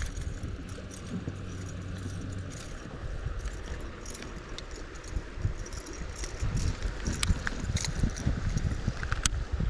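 Handling noise in a small fishing boat: scattered light clicks and rattles over uneven low bumps and rumble.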